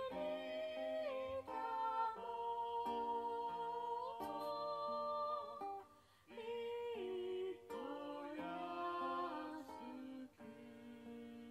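Music: an acoustic guitar being played with a voice singing along.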